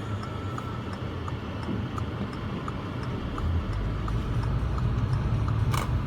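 Car cabin: engine and road rumble with a turn-signal indicator ticking about every 0.7 seconds. The rumble grows louder a little past halfway as the car moves off, and there is one sharp click near the end.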